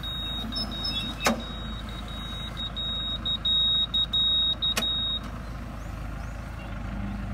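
Engine running steadily with a low rumble. A steady high-pitched tone runs through the first five seconds, and two sharp clicks come about a second in and near the five-second mark.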